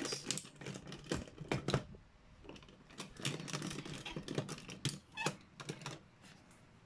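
Plastic transforming robot toy's jointed parts clicking and snapping as they are folded and pressed into place by hand, in irregular clusters of sharp clicks.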